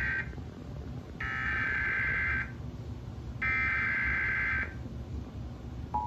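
Emergency Alert System SAME header data bursts, heard through a TV speaker: three harsh, buzzing digital tone bursts, each a little over a second long with about a second between them (the first already under way). They carry the coded header for a severe thunderstorm warning. Right at the end the steady two-tone EAS attention signal begins.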